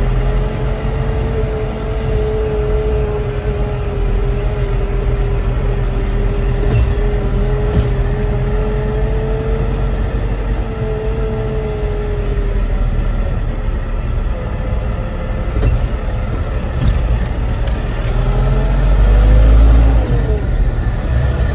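Small truck driving, heard from inside the cab: steady engine and road rumble, with a steady whine over it for the first twelve seconds or so. The low rumble swells louder near the end.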